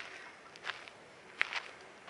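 Footsteps of leather dress shoes on a gravel path, passing close by at an even walking pace, about three steps in two seconds.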